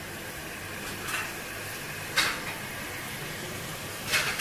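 Beef and onions frying in oil in an aluminium pot, a steady sizzle, with three short sharp knocks or clinks of kitchenware: about a second in, at about two seconds (the loudest) and near the end.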